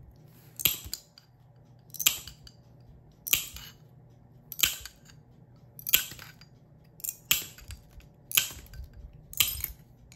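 Glass nippers biting through fusing glass: a sharp snap a little more than once a second, about eight times.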